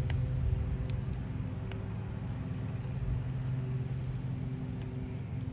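A steady low mechanical drone with a few steady pitched lines in it, and a couple of faint clicks from a claw hammer working under an asphalt shingle, near the start and a little under two seconds in.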